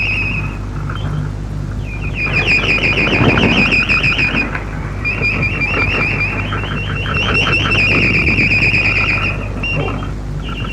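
Shortwave radio interval signal received off the air: a high electronic warble of rapid repeated chirps in phrases a few seconds long, with short breaks, over a steady low hum and reception noise.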